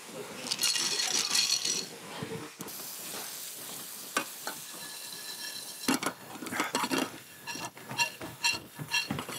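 Food sizzling steadily in a hot pan, with metal utensils clinking and knocking against pots and pans; the clatter turns into a busy run of sharp clinks and knocks about six seconds in.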